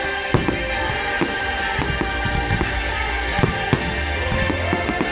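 Fireworks display: many sharp shell bursts and crackles in quick, irregular succession, with music playing along.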